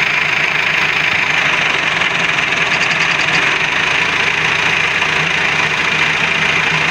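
Massey Ferguson 375 tractor's diesel engine idling steadily while its front loader holds a harvester header raised.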